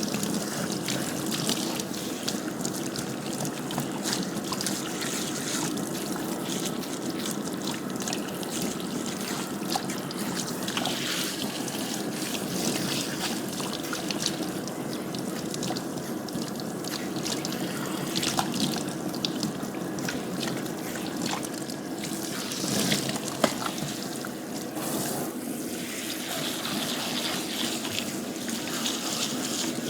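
Water running steadily from a tap and trickling and splashing into a basin, with scattered small clicks and knocks; the sharpest knock comes about 23 seconds in.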